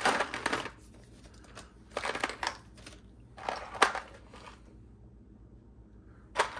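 Small metal pinion gears being rummaged through in a parts container: three clinking, rattling bouts, then a single sharp click near the end.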